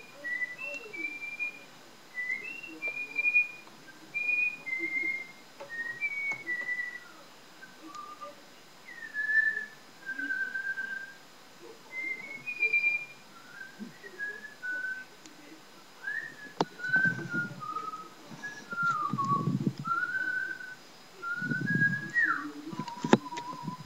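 A woman whistling a melody by mouth: short notes and slides in phrases, the tune moving lower in the second half and ending on a held lower note. A few muffled low noises sound under the whistling in the later part.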